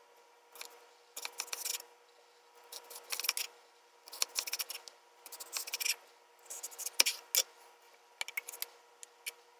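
Kitchen knife slicing through a raw potato on a wooden cutting board: about seven crisp cutting strokes in separate bursts, with one sharper knock late on.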